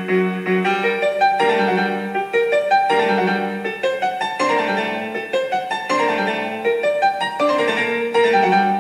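Background piano music, a steady flow of quick notes.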